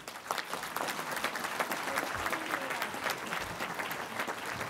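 Audience applause, many hands clapping, breaking out suddenly at the start and keeping up steadily.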